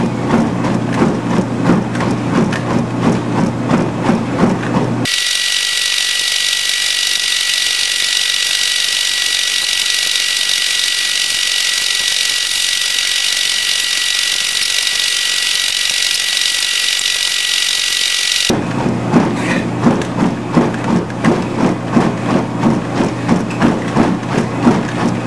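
Treadmill running at speed under a runner: motor hum and belt noise with steady footfalls, about two to three a second. About five seconds in, this cuts out suddenly and gives way to a steady high hiss with a single high tone. The treadmill sound returns just as suddenly about five seconds before the end.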